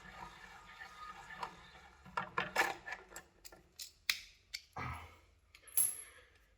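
Irregular metallic clicks, taps and a short scrape from hand tools working the bolts and screws of a Veteran Abrams electric unicycle during disassembly, with a brief high squeak near the end.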